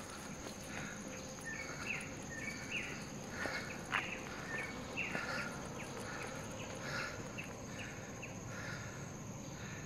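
Forest insects droning steadily on one high pitch, with short chirping calls repeating about once or twice a second over the drone.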